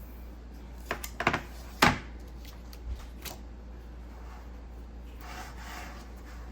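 Pieces of an activity tray set being handled and set down: a few knocks and clatters about a second in, the loudest near two seconds, lighter taps around three seconds, then a brief rubbing slide near the end.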